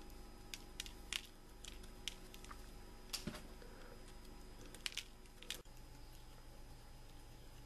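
Small cutters snipping the heads off wooden matches: a series of sharp, irregular snips, roughly one or two a second.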